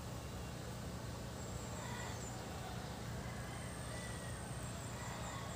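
Steady outdoor background noise, a low rumble with a hiss above it, and a few faint, brief high bird chirps.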